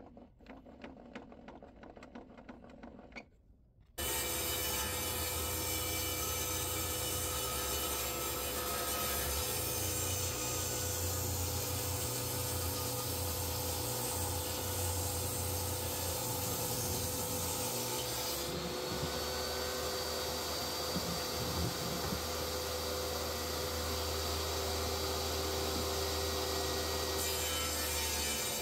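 Table saw running steadily and ripping a thick hardwood board, with a steady motor hum under the cutting noise. The saw starts about four seconds in, after a quiet stretch of faint clicks.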